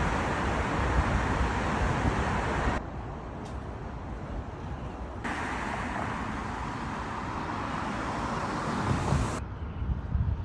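City street noise with traffic rumble, steady within each shot and changing abruptly at cuts about three, five and nine seconds in.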